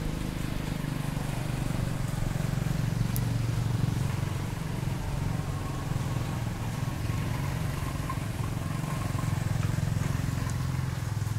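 A steady low motor drone, like engine noise from passing traffic, rising and easing slightly twice.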